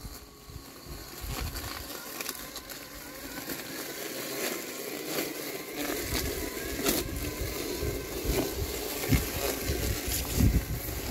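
LandXcape LX790 robotic lawn mower running through tall wet grass: a low, steady hum from its brushless blade motor as it cuts, with scattered crackling clicks. It gets louder about six seconds in.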